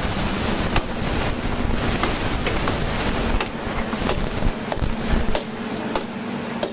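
Machete chopping the branches of a fallen tree: sharp, irregular strikes about once or twice a second, over steady background noise with a faint low hum.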